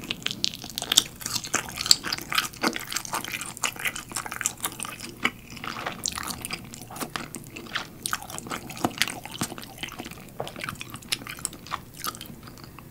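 Close-miked wet chewing of a shrimp dumpling, dense with small sticky clicks and smacks as the chunks of shrimp filling are chewed.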